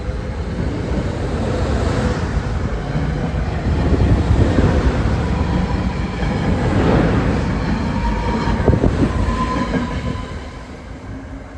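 A train moving past close to the platform: a loud, steady rumble of wheels on rails with a thin squeal from the wheels, fading about ten seconds in as it goes by.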